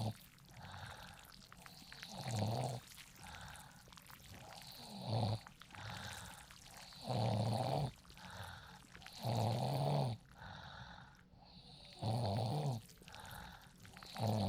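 A sleeping person snoring deeply and rhythmically, a loud rumbling snore about every two and a half seconds, with another beginning right at the end.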